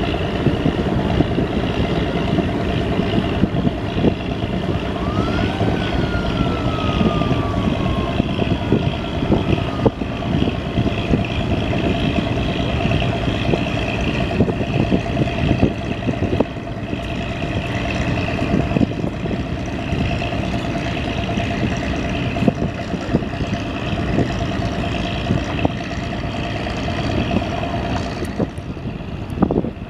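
A river passenger launch's diesel engine running steadily under way, with rushing water and wind noise. A steady hum stops near the end. About five seconds in, a whistle-like tone rises quickly and then slides slowly down over a few seconds.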